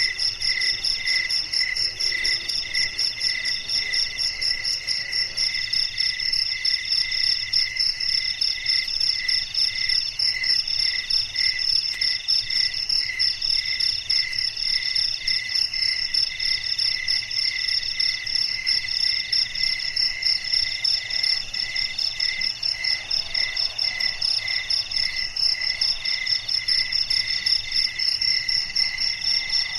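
A chorus of night insects, several chirping and trilling at once at different pitches. One keeps a regular chirp about twice a second, and another trills in bursts of about a second with short breaks.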